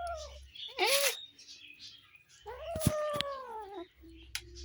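Kittens meowing while they eat: three meows, a short one at the start, a brief one about a second in, and a longer one that falls in pitch from about two and a half seconds in.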